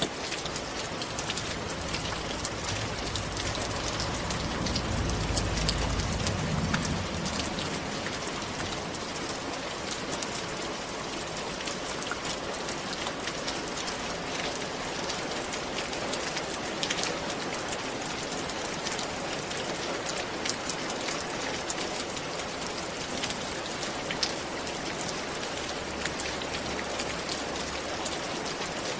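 Steady rain falling on a roof: a dense hiss dotted with many sharp ticks of single drops. A low rumble swells and fades about five seconds in.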